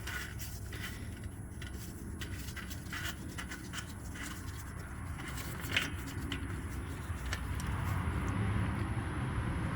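Oil dipstick on a Polaris Ranger 500 being pushed back into its tube and handled: small scrapes and clicks, with one sharp click about six seconds in. A steady low rumble grows louder near the end.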